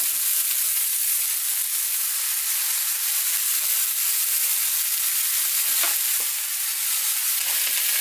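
Mushrooms, bell pepper, onion and spinach frying in butter in a small pan on a gas stove, sizzling steadily.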